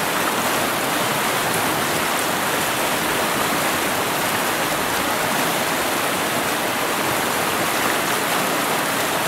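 Steady rush of a stream's current flowing over its bed.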